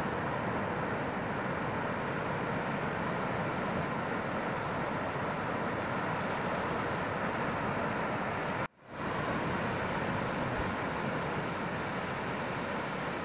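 Steady rushing roar of breaking ocean surf, with wind on the microphone. It cuts out abruptly for a moment about two-thirds of the way through, then returns.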